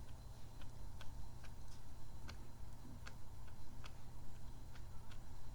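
Sticky, squishy kidney-bean toy handled close to the microphone, giving small sharp sticky clicks at an uneven pace, about two or three a second.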